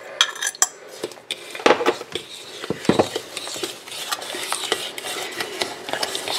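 A metal utensil clinking and scraping in a mixing bowl as egg-and-sugar batter is stirred by hand: a few sharp clinks in the first three seconds, then steady, quick scraping from about four seconds in.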